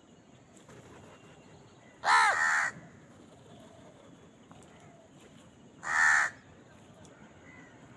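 Crow cawing twice: a harsh caw about two seconds in, and a second, shorter caw about four seconds later.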